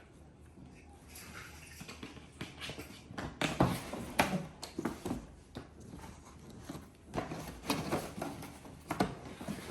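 Irregular clicks, taps and knocks of hands and tools on a laptop's plastic and metal parts as it is worked on, busier and louder from about three seconds in.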